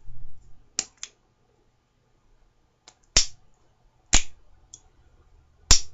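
Gem Pushbutton safety razor being handled: a string of sharp, separate clicks, the strongest three about a second apart in the second half.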